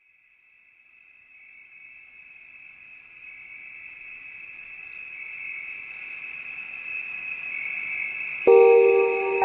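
A steady, high-pitched insect trill like crickets, fading in from silence and growing louder. About a second before the end, a loud mallet-like music chord comes in over it.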